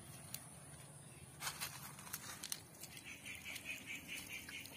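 Faint splashing and pattering of water from the drained plastic water tank falling onto a wet ground puddle, starting about a second and a half in. In the last part a faint rhythmic chirring runs alongside, about six pulses a second.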